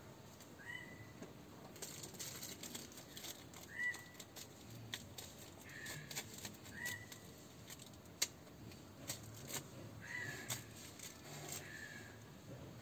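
Thin plastic bag crinkling and crackling as a kitten pounces on it and bites it, in many short sharp rustles. Six short high chirps, each hooking upward, come every second or two.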